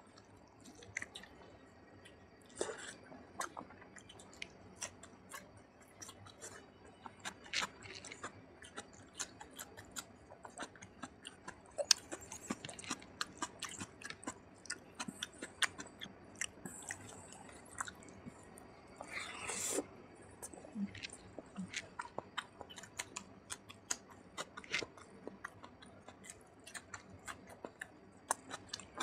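Close-miked chewing of a mouthful of rice and oily mutton fat curry, eaten by hand: wet mouth and lip clicks repeating over and over.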